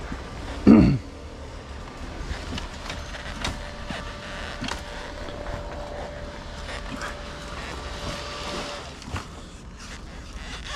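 Distant motorcycle engine running at a steady pitch for several seconds over a low rumble. About a second in there is a short, loud call whose pitch falls.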